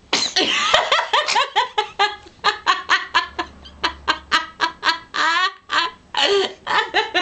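A baby laughing in a quick run of short, high-pitched giggles, about three a second.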